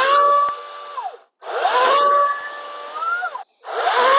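Cordless 40-volt electric chainsaw run in three short bursts on the trigger as it starts cutting a small pine log. Each burst spins up quickly, runs loud and harsh for about a second, then runs quieter with the motor pitch rising slightly before winding down.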